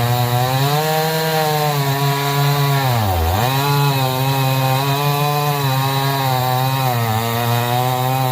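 Two-stroke chainsaw running hard under load, noodling along the grain of a log; the engine note wavers and dips sharply in pitch about three seconds in, then recovers.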